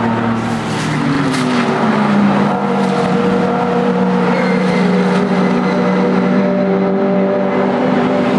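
Race car engines running loud and steady, with a short glide in pitch between one and two seconds in.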